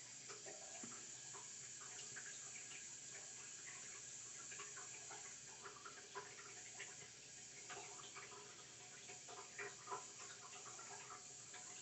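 Faint handling noise: scattered soft clicks and rustles over a steady hiss, a couple slightly louder near the end.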